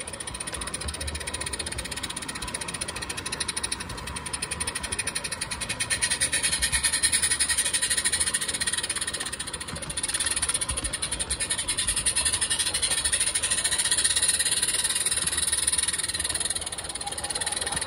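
Roundhouse 16mm-scale live-steam model locomotive running, its rapid, even exhaust beats and steam hiss growing louder as it draws near.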